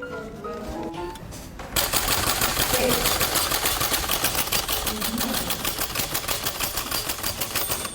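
Typewriter keys clattering in a fast, even run of about ten strikes a second, starting suddenly after a short melodic musical phrase and going on until just before the end.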